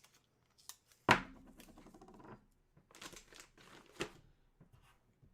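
Hands handling boxed jerseys and their packaging: one sharp knock about a second in, then scattered clicks and soft rustling.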